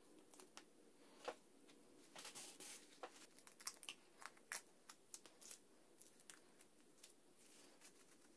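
Faint handling noise: crinkling and rustling with many small sharp clicks as a yellow wrap is pulled off a bundle of thin wooden sticks, busiest in the middle stretch.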